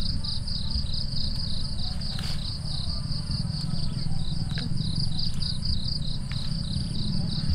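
Insect chirping in a fast, even pulse of about five high-pitched chirps a second, over a steady low rumble.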